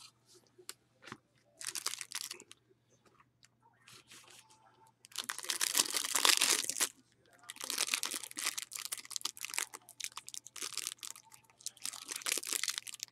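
A trading card pack's wrapper being torn and crinkled by hand in several goes. The longest and loudest tear comes about five seconds in, followed by repeated crinkling as the stubborn pack is worked open.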